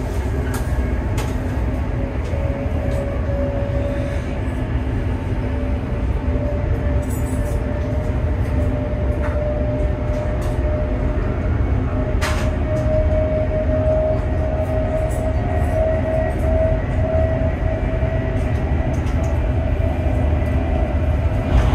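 CRH high-speed train carriage heard from inside while running at speed: a steady low rumble with a thin whine that slowly rises in pitch, and a single short click about halfway through.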